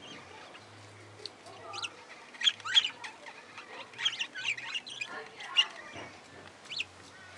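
A flock of budgerigars chirping and chattering: scattered short, sharp calls that slide up and down in pitch, loudest in a cluster about two and a half to three seconds in.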